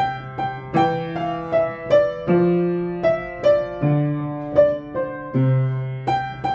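Piano playing a melody, a note struck about every half second over low bass notes that change every second and a half or so.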